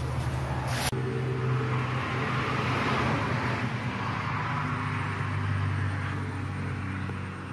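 An engine running steadily, a low hum under a rushing noise, which cuts off abruptly at the very end.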